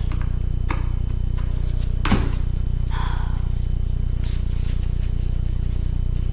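Small clicks and knocks of a screwdriver and metal parts being handled on a laptop casing, the loudest about two seconds in, with a short scrape about three seconds in, over a steady low electrical hum.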